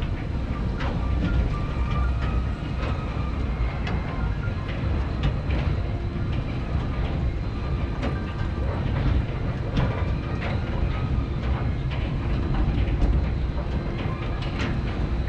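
Auto chair, a rail-guided chair ride, running along its track: a steady low rumble with irregular clicks and clacks from the chair running on the rail.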